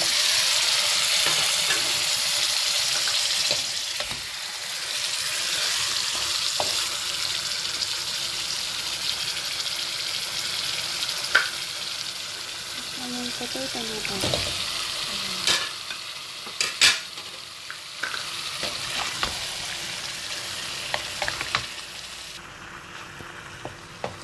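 Curry paste and onion sizzling in a hot wok as raw chicken pieces are added and stirred through the sauce; the sizzle is loudest in the first few seconds and slowly dies down as the pan fills. A few sharp knocks against the wok come in the second half.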